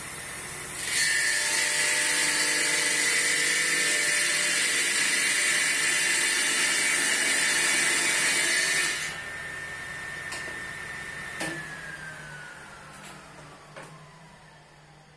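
Table saw running, then loudly cutting for about eight seconds as a wooden dowel, spun by a cordless drill in a tapering jig, is fed across the blade to shape a tapered stick leg. The cutting stops, the saw whines on briefly, and after a click its whine falls steadily in pitch as the blade coasts down.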